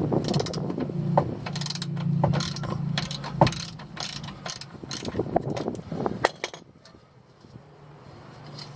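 Ratchet wrench clicking in short back-and-forth strokes as it works the transfer case drain plug loose; the clicking stops about six seconds in.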